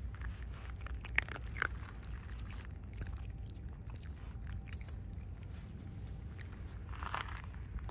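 Raccoon dogs (tanuki) chewing and crunching dry food pellets off the ground: a run of small crisp clicks, with two sharper ticks just over a second in and a short rustle near the end.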